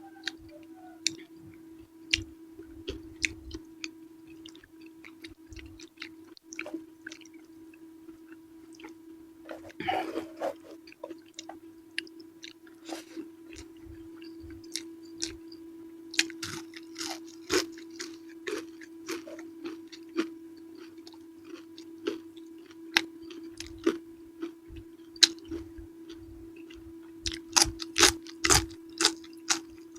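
Close-miked chewing of purple eggplant with sambal: many short wet mouth clicks and crunches, coming in louder clusters about ten seconds in, around sixteen to eighteen seconds, and near the end. A steady low hum runs underneath.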